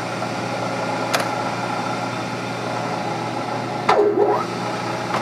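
Bridgeport 1ES horizontal milling machine running with a steady motor hum. There is a sharp click about a second in and a louder clunk with a brief squeak near the end.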